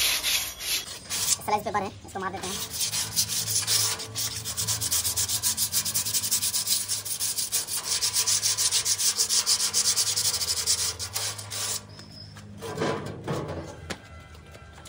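A rusty painted sheet-metal sign being rubbed down by hand with a small abrasive pad, in rapid, even back-and-forth scraping strokes that strip old paint and rust. The strokes thin out and falter over the last few seconds.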